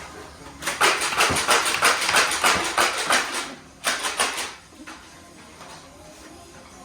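A rapid run of clicks and clatter from foam-dart blasters firing and darts striking, starting about a second in and lasting over two seconds, then a shorter burst around four seconds in.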